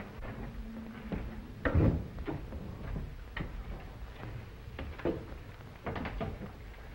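Footsteps and scattered knocks of people moving about a room, the loudest a heavy thump about two seconds in.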